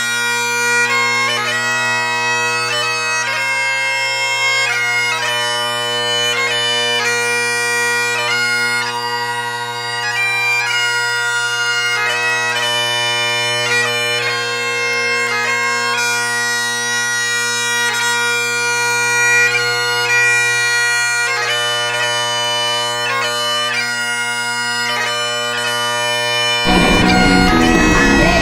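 Instrumental background music: a melody moving over steady low drones that hold unbroken throughout. About a second and a half before the end it cuts abruptly to a louder, dense, noisier sound.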